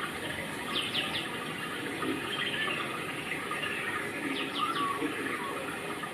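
Birds chirping: two bursts of three quick falling notes, about a second in and again just past four seconds, with scattered softer chirps over a steady rushing background.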